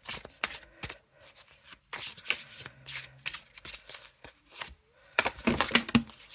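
A deck of oracle cards being shuffled and handled by hand: quick, papery clicks and slaps of card on card in several spells, the loudest near the end.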